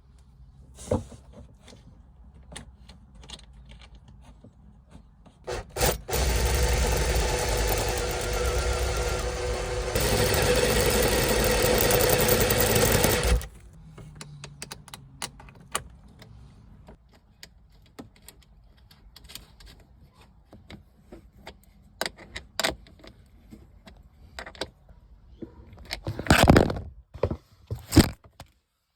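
Power drill running steadily for about seven seconds, drilling out holes, with a steady whine that grows louder partway through. Light clicks and handling knocks come before and after it, with a few sharp knocks near the end.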